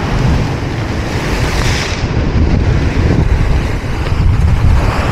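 Sea waves breaking and washing against a rocky shore, with strong wind buffeting the microphone.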